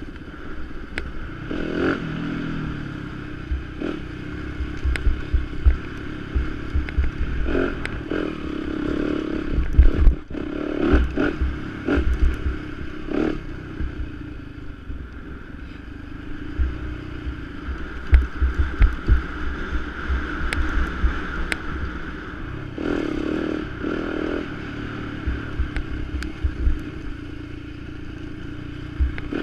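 Yamaha YZ250FX's single-cylinder four-stroke engine rising and falling with the throttle as the dirt bike is ridden over a dirt trail. Wind buffets the microphone, and sharp knocks come through as the bike clatters over bumps.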